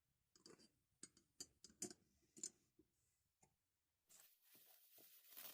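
Near silence with a handful of faint, short clicks and taps in the first three seconds or so, then a faint hiss from about four seconds in.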